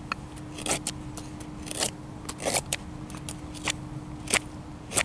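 A knife carving wood, with about a dozen short shaving strokes at an irregular pace of two or three a second.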